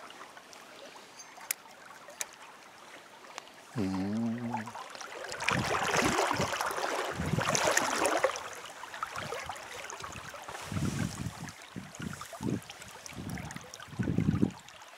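Stream flowing, with a few seconds of loud splashing about a third of the way in as a hooked trout is landed in the water, then low bumps and knocks of handling.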